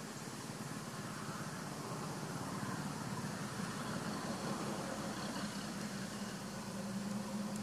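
A steady low hum that grows a little louder toward the end, over an even background hiss.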